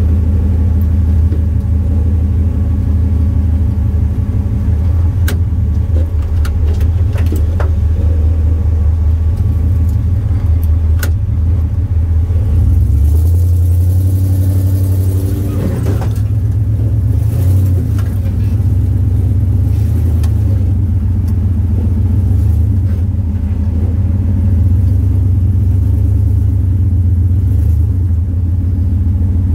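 Off-road vehicle's engine pulling under load up a steep rock climb, a steady low drone. A few sharp knocks come in the first half, and about halfway through there is a rush of noise while the engine note shifts in pitch.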